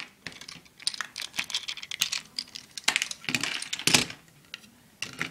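Plastic Lego bricks being pulled apart and handled: a rapid run of small clicks and clatters, loudest about three to four seconds in.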